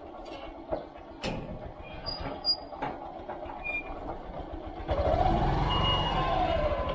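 Scattered light knocks and clicks, then from about five seconds in a motor vehicle's engine gets suddenly louder, its pitch rising and falling back over about two seconds.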